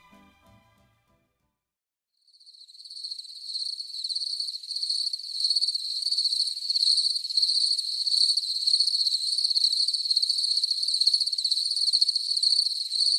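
Crickets chirping in a steady, finely pulsing high-pitched chorus, starting about two seconds in, just after the last notes of the music fade out.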